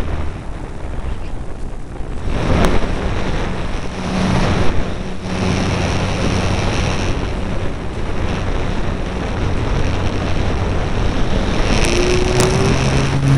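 Electric motor and propeller of an E-flite Apprentice RC trainer plane running in flight, heard through a keychain camera on the airframe, under heavy wind rush on the microphone. The motor's tone shifts several times as the throttle changes.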